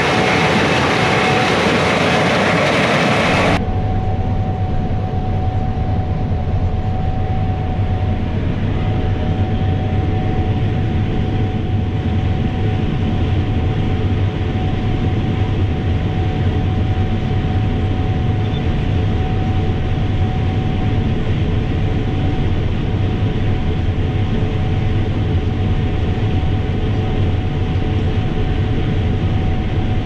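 Gleaner S97 combine running steadily while it unloads corn through its auger into a grain cart: a constant low machine drone with a steady whine over it. For the first three and a half seconds a brighter, hissier sound plays instead and cuts off suddenly.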